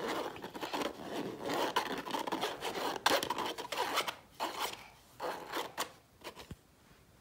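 Small whisk scratching and rubbing around in a mesh sieve of flour, in quick, uneven strokes with a few sharper taps against the mesh. The strokes grow sparser and fainter in the last couple of seconds.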